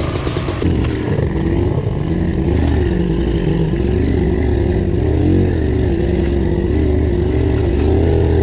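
Pit bike engine running under way, heard close up, its note wavering a little with the throttle. The sound changes abruptly under a second in, then runs on steadily.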